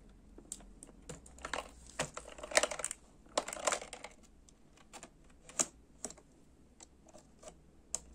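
Hobby-knife blade scraping and slicing at the glued flaps of a cardboard toy box, with scattered sharp clicks and taps as the box is handled. The busiest, scratchiest stretch comes between about one and a half and four seconds in.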